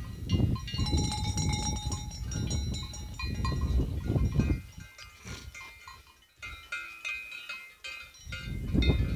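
Livestock bells clanking and ringing on grazing animals, with gusts of wind rumbling on the microphone that ease off for a couple of seconds past the middle.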